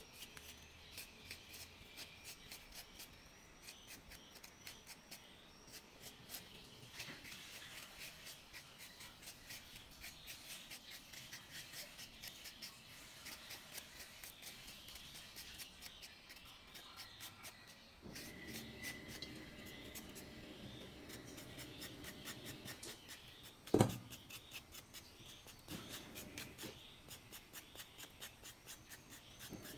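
Skin being scraped off fresh ginger root in quick, repeated short strokes. One sharp, louder knock comes about two-thirds of the way in.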